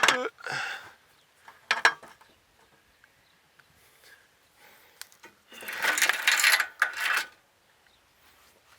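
Metal clinks and rattling from a sawmill log stop and its drive chain being worked by hand: a few sharp clinks, then about a second and a half of clattering rattle a little after the middle.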